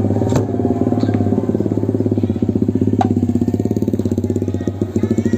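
An engine idling steadily, with a fast even pulse, and two sharp knocks, one about half a second in and one about three seconds in.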